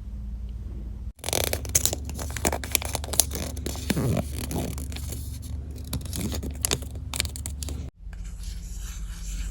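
Wrapping being torn open and crinkled by hand: a run of crackly tearing and rustling that starts about a second in and stops abruptly near the end.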